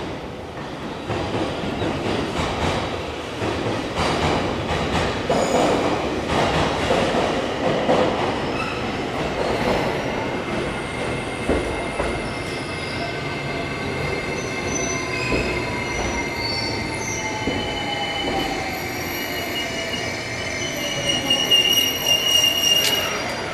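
Electric express-type train pulling into the platform and braking: wheels rumble and clatter at first, then high steady squeals and a whine falling in pitch as it slows to a stop.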